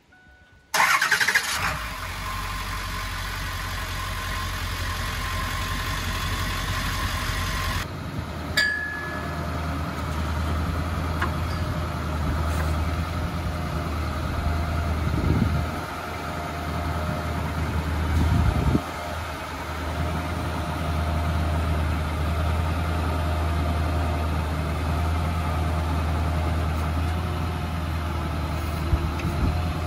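Ford F-550 bucket truck's engine starting about a second in, then running steadily. About eight seconds in the running sound changes with a click, and the engine runs on, swelling briefly twice, while the hydraulic boom raises the bucket.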